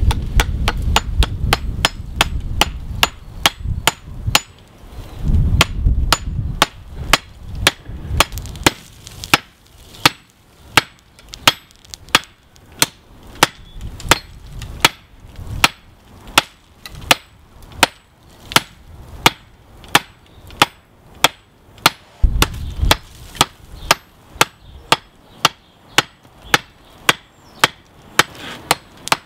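A hand hammer strikes red- to white-hot railroad-spike steel on an anvil, a steady run of sharp blows about two a second. The blows are forge-welding the borax-fluxed, wrapped axe blank together.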